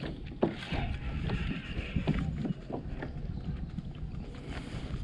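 Scattered light knocks and rustles of a caught largemouth bass being handled at the water's edge of a small boat, over low wind noise on the microphone.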